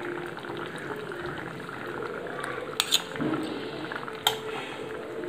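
Fish gravy simmering in a steel kadai with a steady low bubbling, while metal utensils clink sharply against the pan: a quick double clink about three seconds in and one more clink a second later, as fried fish pieces are put in.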